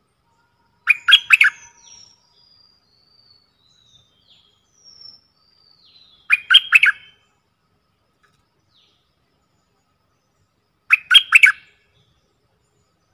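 Stripe-throated bulbul singing three short, quick bubbling phrases, each under a second long, about five seconds apart. Faint thin, higher notes run on between the first two phrases.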